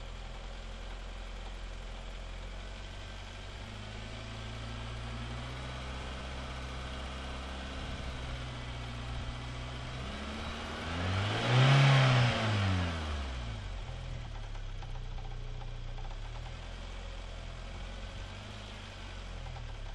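Car engine idling, revved once about halfway through, its pitch rising and falling back to idle. The engine has a knock that the owner cannot account for.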